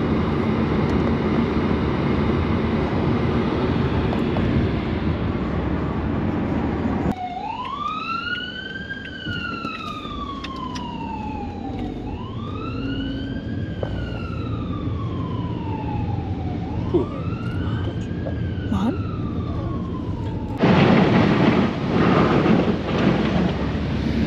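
A siren wailing in three slow rise-and-fall sweeps, each climbing quickly and then sliding down over about four seconds. Steady noise comes before it, and a louder rush of noise with a few knocks cuts in after it near the end.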